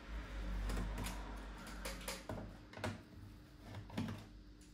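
Scattered clicks and light knocks from a plastic laptop case being handled, with a low rumble over the first two seconds.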